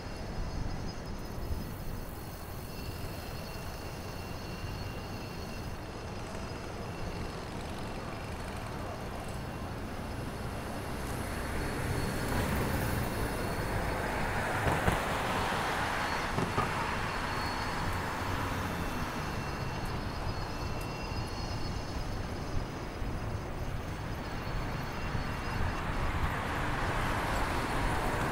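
City street traffic heard from a moving bicycle: a steady low rumble with passing vehicles, one swelling up and fading away about halfway through and another building near the end.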